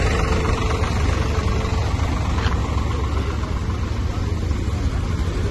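Vehicle engines running with a steady low rumble and road noise.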